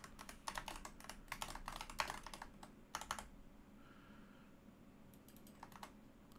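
Typing on a computer keyboard: a quick run of keystrokes for about three seconds, a pause, then a few more keystrokes near the end.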